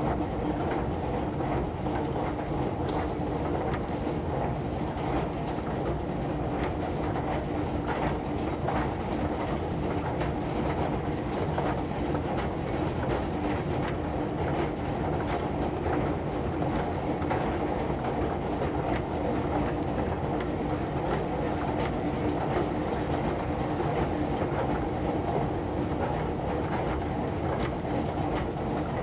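Moving escalator running: a steady mechanical hum with one held tone, over a continuous run of light clicks and rattles.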